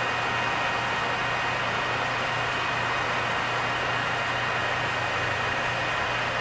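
Engine lathe running with its spindle turning a large round bar: a steady hum with an even hiss. A facing cut with a carbide insert tool is throwing chips at the start and has stopped a few seconds in.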